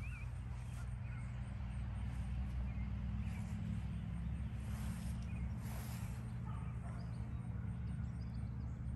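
Outdoor ambience: a few faint, short bird chirps over a steady low hum.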